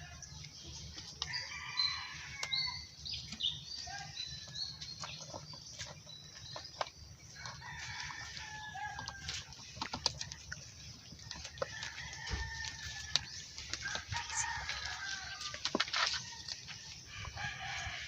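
Birds calling, with many short calls overlapping, over scattered sharp clicks and knocks and a low steady hum.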